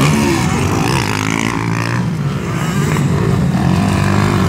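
Motocross dirt bike engines running and revving, the pitch rising and falling as the throttle opens and closes.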